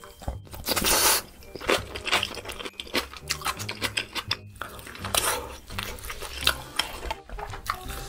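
Close-miked crunchy, wet chewing of a big mouthful of napa cabbage kimchi, with irregular crunches throughout and the loudest burst about a second in.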